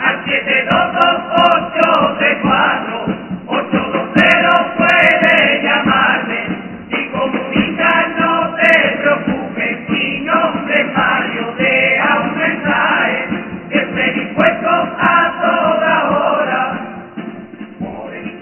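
An all-male chirigota carnival group singing together in chorus, in phrases broken by short pauses.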